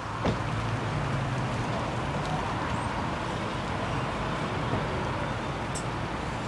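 Diesel engine of a city bus running as the bus pulls slowly across in front, over general traffic noise, with a low hum most noticeable in the first two seconds. A single sharp click sounds just after the start.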